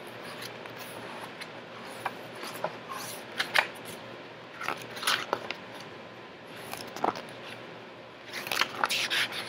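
Paper pages and cover of a picture book being flipped and handled, making scattered rustles and soft taps in short clusters.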